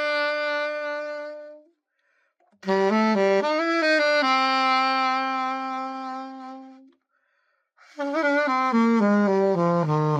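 Selmer Mark VI alto saxophone played solo as a play test after a complete overhaul. A phrase ends on a long held note, a short pause, a second phrase settles into another long held note, and after a second pause a new phrase steps downward.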